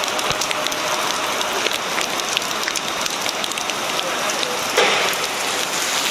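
Heavy rain pouring onto the street and pavement, a steady hiss with many sharp ticks of drops striking close by, and a brief louder rush just before five seconds in.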